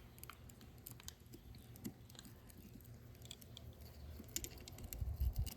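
Screwdriver working a snap ring on a tractor hydraulic coupler: scattered faint metal clicks and scraping, with a low rumble growing louder near the end.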